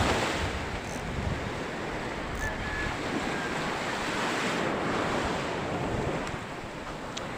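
Rough surf breaking and washing up the beach, a steady noise of waves, with wind on the microphone.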